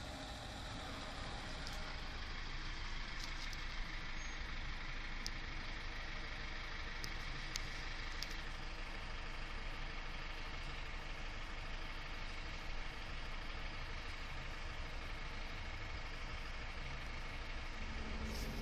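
Steady low rumble of a running motor vehicle engine, with a few faint clicks.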